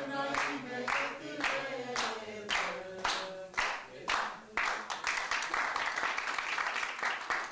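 A group singing with rhythmic hand-clapping on the beat, about two claps a second. About four and a half seconds in, the singing fades and the clapping turns into general applause.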